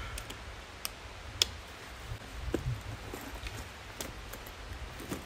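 Gear being adjusted by hand: rustling and a few sharp clicks from a backpack strap and chest pouch, the loudest click about one and a half seconds in, over a low steady rumble.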